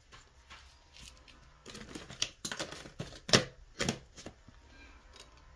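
Small scissors snipping, a run of about six sharp clicks from under two seconds in to past four seconds, the loudest in the middle, trimming excess cold porcelain clay from the piece.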